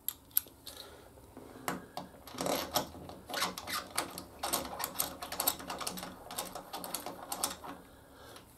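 Irregular metallic clicks, taps and short scrapes of small bolts and hand tools being handled during caliper bolt replacement.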